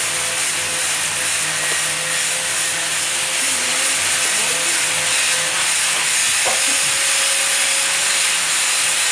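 Stone-cutting machine running: a steady, loud hiss with a constant mid-pitched hum beneath it.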